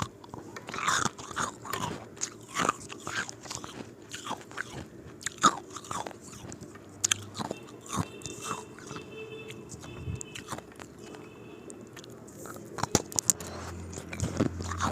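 Ice cubes being bitten and crunched between the teeth, one sharp crunch after another at an irregular pace, with chewing in between.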